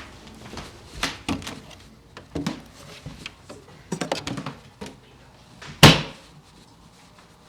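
A string of short knocks and clunks, the loudest a heavy thud about six seconds in.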